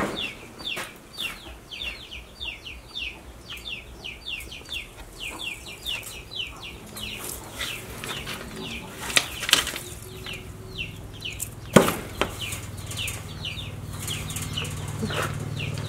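High, short falling chirps from a small bird, repeated about three times a second. A few sharp crunches cut in, the loudest about nine and twelve seconds in, as a crested porcupine chews pumpkin.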